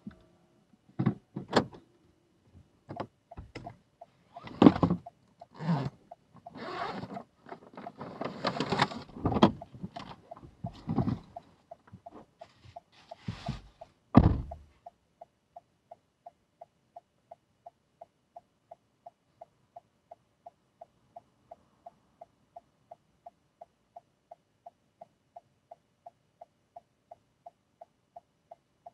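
A driver getting out of a car: clicks, rustling and knocks as he moves, ending with the car door shutting with a thump about 14 seconds in. After that the car's indicator ticks steadily, about two ticks a second.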